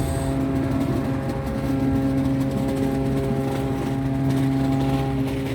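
A cargo ship's horn sounding one long, deep, steady blast that starts suddenly and stops about five seconds in, over wind and sea noise.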